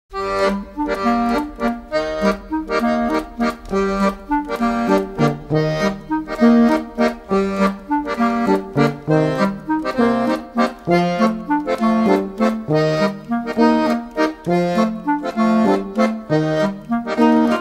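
Accordion music: a tune of quickly changing notes over a stepping bass part, starting abruptly out of silence.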